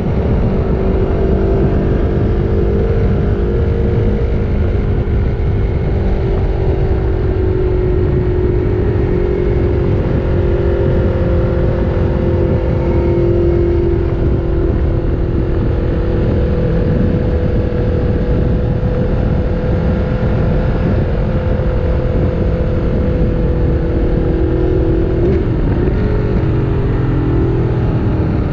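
Aprilia Tuono V4 Factory's V4 engine running at high revs on the move, heard on board with heavy wind rush on the microphone. The pitch holds nearly level with small rises and falls, then near the end it dips and climbs again.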